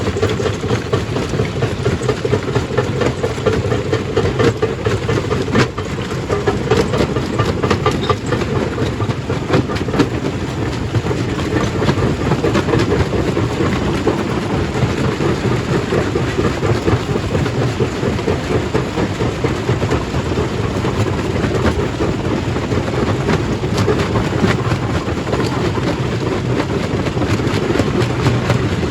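Stone crusher running under load, a steady heavy rumble with a constant clatter and knocking of rock being broken and tumbling through it.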